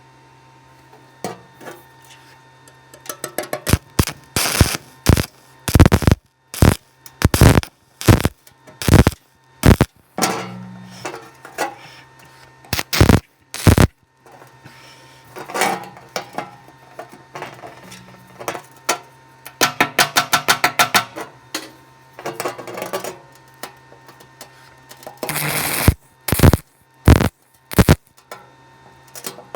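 Irregular sharp metal knocks and clanks, with a fast rattling run about two-thirds through and a short noisy burst near the end, over a steady low electrical hum.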